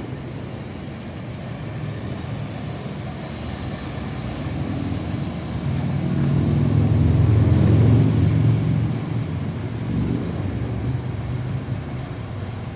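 GO Transit MP40PH-3C diesel locomotive pulling its train out of the station: a low engine hum with rumbling cars that swells to its loudest about seven to eight seconds in as the locomotive goes by, then eases off.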